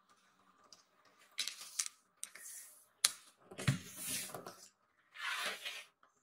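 Kittens scuffling on a shaggy rug: several short bursts of scratchy rustling, with a sharp click about three seconds in.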